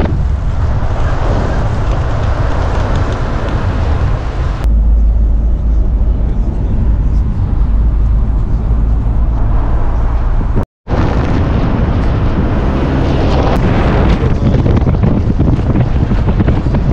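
Steady road and engine noise from a moving vehicle, with wind buffeting the microphone. About four and a half seconds in, the sound switches abruptly to a heavier low rumble, and it drops out for an instant at about eleven seconds.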